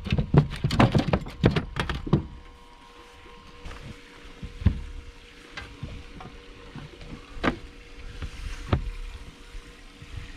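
A big flathead being landed and handled in a boat: a quick burst of knocks and slaps as it thrashes, then a few single knocks.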